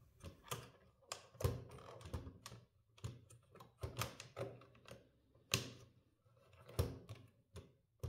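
Irregular small clicks, knocks and brief scrapes from the parts of a 1950s VEB Optima Bambino pointer typewriter as its letter layout strip is lifted off and refitted to change the layout.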